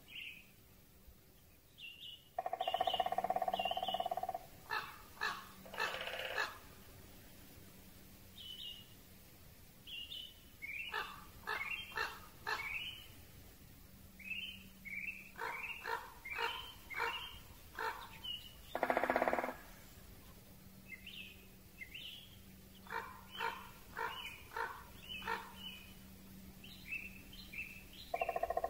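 Great spotted woodpecker drumming in short rolls, near the start and again about two-thirds through, amid spring forest birdsong: many short high chirps and series of harsher, lower calls.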